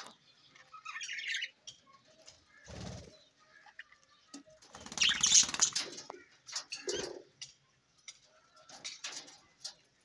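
Budgerigars in an aviary: a few short bursts of wing flutter and chirping with quiet gaps between them, the loudest about five seconds in.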